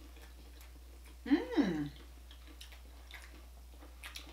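A person eating a fried chicken tender: a brief hummed "mmm" about a second in, its pitch rising and then falling, followed by faint chewing and mouth clicks.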